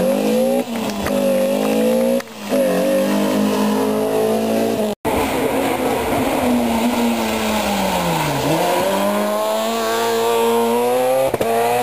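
Two rally car engines. First a BMW rally car revving hard, its note dropping sharply twice as it shifts gear. Then a Peugeot rally car's engine falls away as it slows into a hairpin and rises again as it accelerates out.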